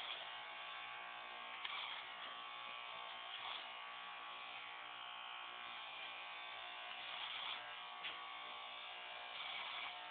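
Electric hair clippers running with a steady buzz as they cut through short hair.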